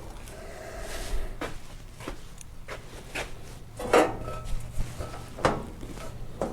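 Clamps being fitted to sheet-metal body panels: a series of separate metallic clanks and clicks, the loudest about four and five and a half seconds in.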